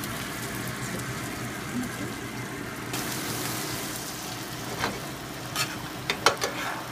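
Butter and crumbs sizzling in a skillet as cottage-cheese dumplings are turned in them with a metal spatula; the sizzle grows brighter about three seconds in. Several sharp clicks of the spatula against the pan come near the end.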